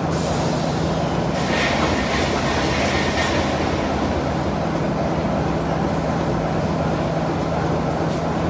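Diesel locomotive engine idling steadily with a low, even hum. Two brief hisses come about one and a half and three seconds in.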